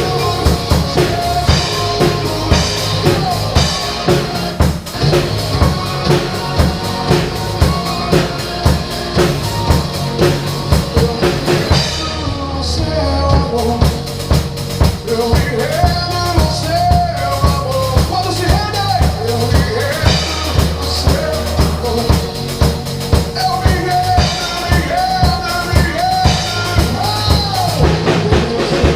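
A drum kit played in a steady beat along to a recorded worship song with a full band and a melody line.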